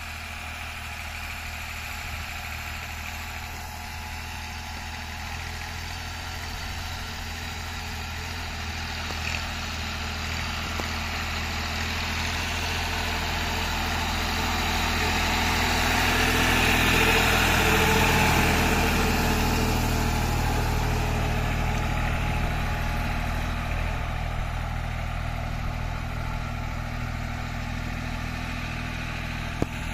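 New Holland 3630 TX tractor's diesel engine running steadily as it pulls a laser land leveler. It grows louder toward the middle and then eases off again.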